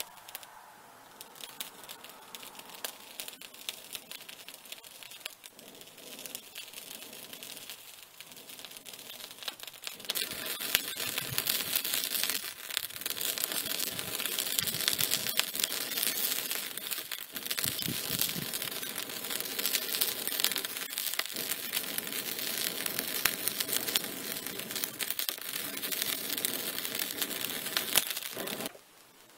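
Charcoal fire in a small brick forge crackling, with quick irregular pops, as a fuigo box bellows blows air through it. The crackling grows louder about ten seconds in and cuts off suddenly just before the end.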